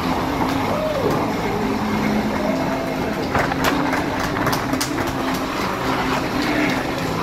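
Steady engine drone with an even low hum, heard from inside a glass-walled lounge, with a scatter of short clicks about halfway through.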